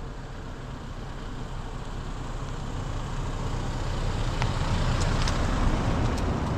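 Toyota Hilux towing a single-axle caravan drives up and past. Its engine and tyre noise grow steadily louder as it nears, with a few light clicks in the last couple of seconds.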